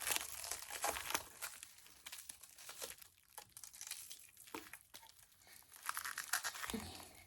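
Packaging being pulled off and crumpled by hand: irregular crinkling and tearing crackles, in louder bursts near the start and again toward the end.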